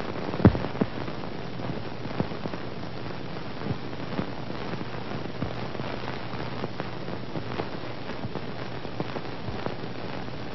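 Steady hiss with irregular crackles and pops, the surface noise of a worn old film soundtrack, with one louder pop about half a second in.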